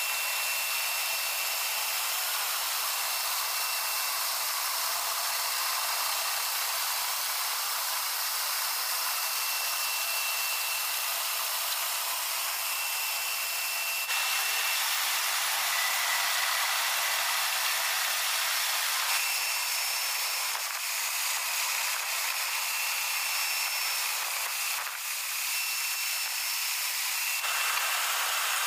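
Siwertell screw-type ship unloader's inlet feeder turning in coal: a steady mechanical hiss and whir with a thin, high whine over it.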